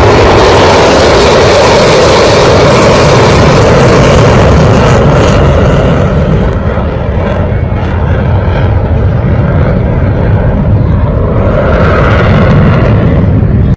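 Loud, steady roaring noise from shop machinery, easing off slightly about six seconds in and cutting off abruptly at the end.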